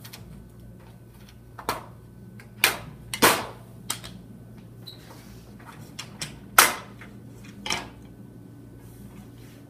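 Sharp, irregular clicks and knocks of chrome end caps being pulled off and handled on the aluminium base of a Silvertone retractable banner stand, about six in all, the loudest about two-thirds of the way through.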